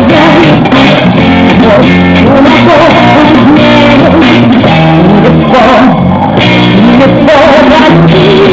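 Loud dance music with a singing voice over a steady bass line, played over a sound system.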